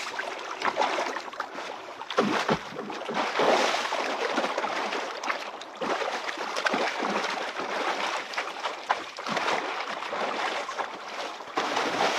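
A person swimming in a small pool, arms and body splashing and churning the water in an irregular run of splashes.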